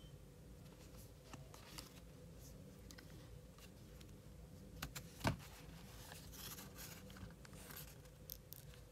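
Cardboard watch-band packaging being handled: faint clicks and short rustles of the box and its sleeve, with one sharp knock about five seconds in.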